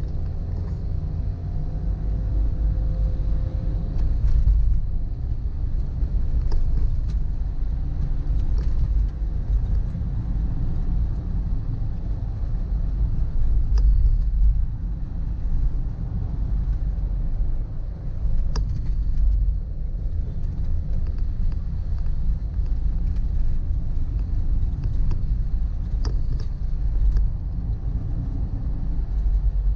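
Steady low rumble of a vehicle moving through traffic, with engine and road noise and a few faint clicks.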